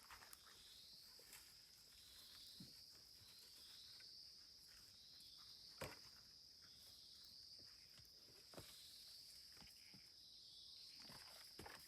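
Faint chorus of night insects: a steady high-pitched buzz that pulses about once a second, with thinner high whines above it. Scattered soft clicks and taps come through, the loudest about six seconds in.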